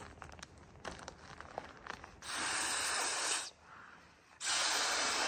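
Blow-up camping pillow being inflated: two long hissing rushes of air, each a little over a second, with a short pause between them.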